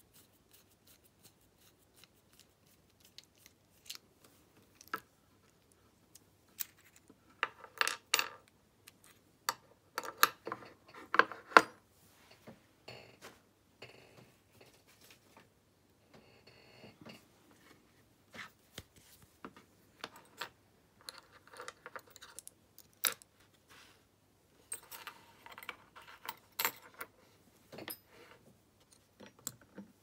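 Small metal clicks and clinks from an American 1100 padlock being taken apart by hand: its brass core and pins handled and set down on a wooden bench. The clinking comes in two busy spells, about a third of the way in and again past the two-thirds mark.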